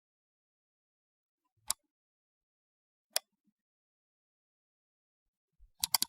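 Computer mouse button clicks: a single click about two seconds in, another a second and a half later, then a quick run of three or four clicks near the end.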